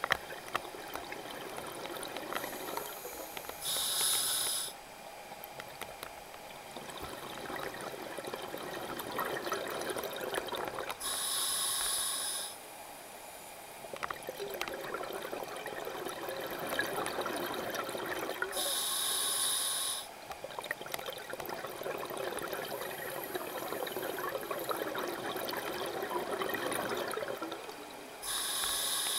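A scuba diver's regulator breathing, heard underwater: a hiss about every seven to eight seconds, four times in all, with exhaled bubbles crackling and gurgling in between.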